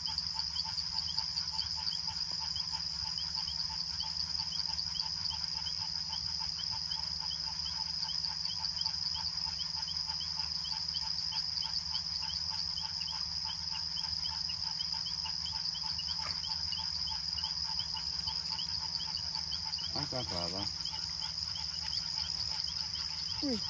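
Night chorus of crickets and other insects: a steady high-pitched trill with rapid, evenly repeated chirps over it, running unbroken.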